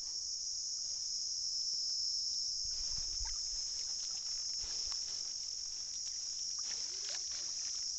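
A steady, high-pitched insect chorus, with a few faint splashes as a fishing net is hauled out of the water into a boat.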